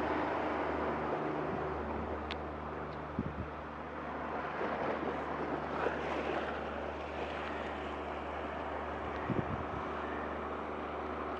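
A steady low motor hum with a few held tones that shift in pitch now and then, over wind noise.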